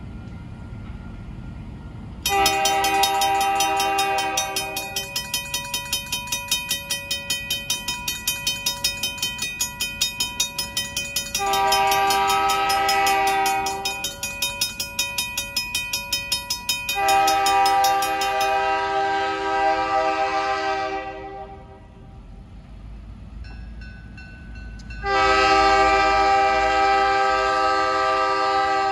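Diesel locomotive air horn blowing four long, multi-note blasts for a grade crossing. Under the first three blasts, a crossing warning bell rings fast and evenly, about three strikes a second, and stops about two-thirds of the way through.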